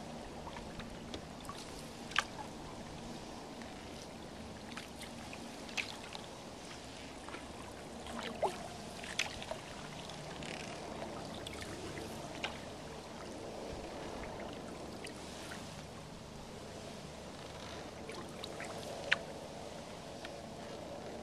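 A wooden canoe paddle working through lake water, with water trickling and splashing off the blade and along the canoe's hull, and a few sharp clicks.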